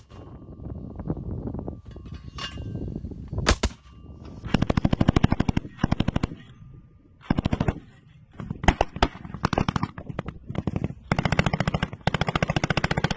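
Machine-gun fire: a couple of single shots, then several bursts of rapid automatic fire, the last and longest near the end.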